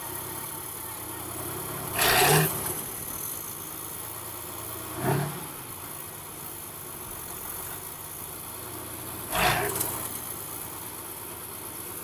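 Diesel engine of a Kirovets K-700-series articulated tractor running steadily, with three short louder bursts about two, five and nine and a half seconds in, the first the loudest.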